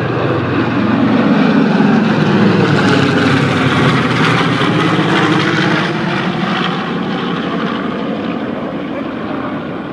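A formation of WWII piston-engined warbirds passing low overhead, their propeller engines droning together. The sound swells to its loudest in the first few seconds and then slowly fades as they pull away.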